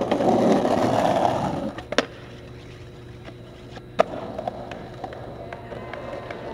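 Skateboard wheels rolling loudly over rough concrete, easing off after a second and a half. Then two sharp clacks of the board, one about two seconds in and one about four seconds in, with quieter rolling between.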